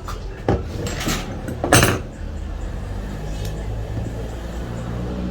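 Three sharp knocks and clatters of tools or metal parts being handled at a workbench, the loudest just under two seconds in, over a steady low hum.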